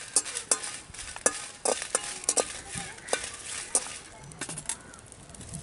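Steel spoon scraping and clinking against a steel pan while dried red chillies are stirred and dry-roasted without oil. Irregular sharp clicks and scrapes come several times a second and ease off after about four seconds.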